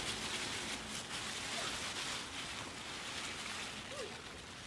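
Cucumber plant's large leaves and vines rustling and crackling as it is pulled up by hand, in uneven swells of noise.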